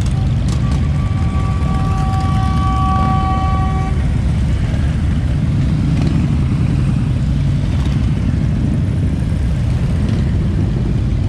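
A parade of Harley-Davidson V-twin motorcycles riding past in a steady stream, their engines running with a deep, continuous rumble. A horn is held for about three seconds near the start.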